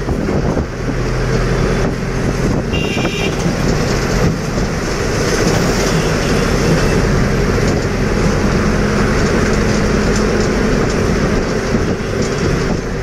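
Moving bus heard from inside: steady engine and road noise, with a brief high-pitched tone about three seconds in.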